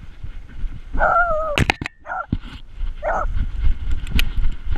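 Beagle barking three short times, the first a slightly longer, whiny bark about a second in. Sharp knocks and a low rumble come from the camera strapped to the running dog.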